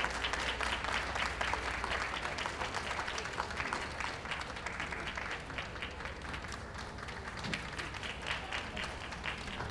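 Audience applauding: many hands clapping in a dense, steady stream that slowly fades.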